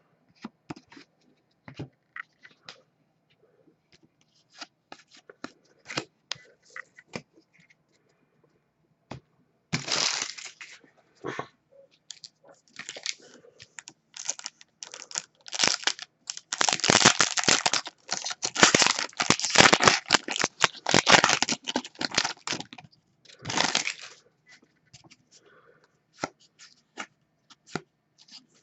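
Trading card pack's foil wrapper being torn open and crinkled, in noisy rips about ten seconds in and through the middle, with scattered light clicks and taps of cards being handled before and after.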